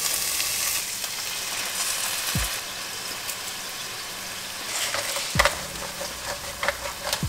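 Broccoli florets frying in olive oil in an open pan, a steady sizzle, with a few sharp clicks near the end.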